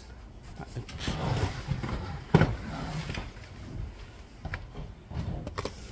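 Rustling and scattered knocks, with one sharp knock about two and a half seconds in.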